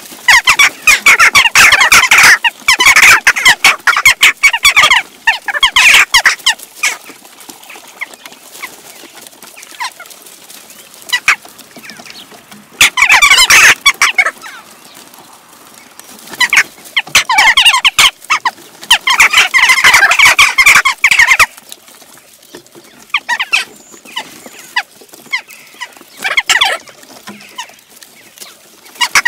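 A large flock of western jackdaws calling in dense, overlapping bursts as they squabble over food. The calling is thickest for the first several seconds and again around the middle, with quieter spells of scattered single calls in between.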